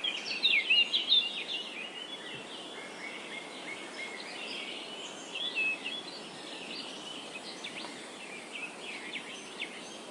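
Several small birds chirping and twittering together in a morning chorus over a steady background hiss, with the chirping busiest near the start and again midway.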